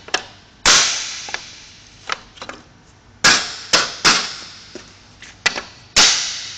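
Orange plastic tops being pressed and snapped into place on the segments of a Bretby cable handler, one after another. There are about eight sharp, loud snaps at irregular spacing, each with a short ringing tail in the room.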